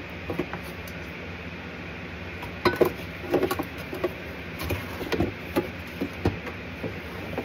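Top cover of a Chinese diesel air heater being handled and slid onto its housing: scattered clicks and knocks of hard plastic, loudest a few seconds in, over a steady low hum.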